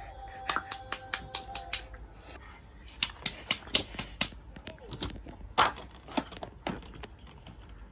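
A run of sharp clicks and taps, coming in quick groups of several a second, the loudest about halfway through. In the first two seconds a steady electronic tone of two notes sounds under the clicks.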